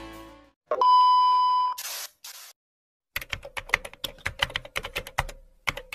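Intro music fading out, then a steady electronic beep lasting about a second and a short hiss, followed by a fast run of typewriter-style key clicks: a typing sound effect laid under on-screen text being typed out.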